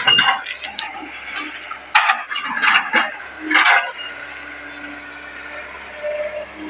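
Hitachi 110 hydraulic excavator working, its engine running steadily under three loud bursts of scraping and clinking in the first four seconds.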